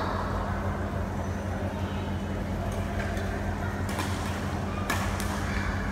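Badminton rally: sharp racket hits on a shuttlecock, one at the start and three close together from about four seconds in, over a steady low hum in the hall.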